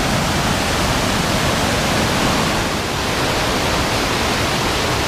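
The Voidomatis river rushing steadily under the bridge: a loud, even roar of fast water.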